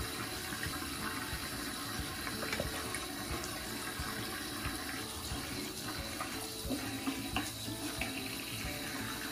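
Bathroom sink tap running, a thin stream of water splashing steadily into the basin, with a few faint small clicks.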